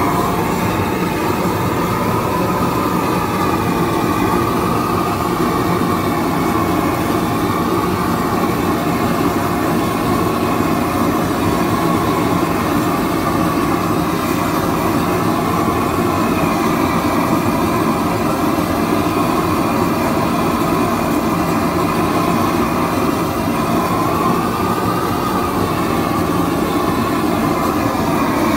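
A propane roofing torch burning steadily over icy concrete pavers, a constant loud flame rush with no break, its tone wavering slightly.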